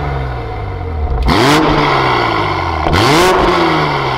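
2020 Toyota GR Supra's turbocharged 3.0-litre inline-six, breathing through a catless Fi Exhaust valved system with the valves open, revved twice from idle. Each rev climbs quickly and falls back more slowly to a steady idle.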